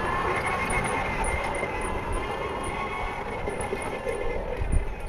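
Battery-electric miniature locomotive's two 500-watt traction motors whining as it pulls away. The whine rises briefly near the start, then holds a steady pitch and fades out near the end as the locomotive draws away.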